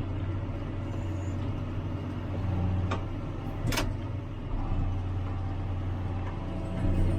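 Tractor engine running at a steady pitch under way, with a couple of sharp clicks about halfway through.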